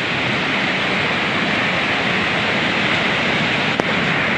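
Rough sea surf breaking on a stony shore: a steady, unbroken rush of water noise.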